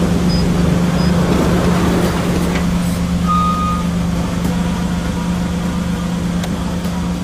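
Car engine running steadily with an even low hum and a haze of road noise.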